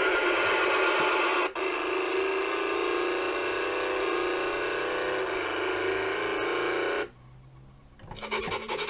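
Electronic sound effects from a battery-powered toy recycling truck, played through its small built-in speaker after a button on the cab roof is pressed. The sound is thin, with no bass. It breaks off briefly about a second and a half in and stops about seven seconds in. A new effect starts near the end when the button is pressed again.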